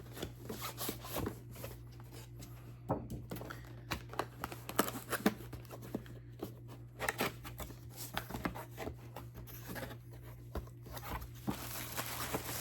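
Product box and its packaging being opened by hand: scattered rustling, crinkling, tearing and small knocks, over a steady low hum.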